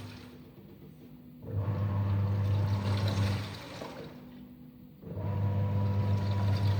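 Hitachi 8KGLTL08PM00 top-load washing machine agitating its wash load: the motor hums and water churns in bursts of about two seconds, with quieter pauses between them as the pulsator stops and reverses. Two bursts, one about a second and a half in and one about five seconds in.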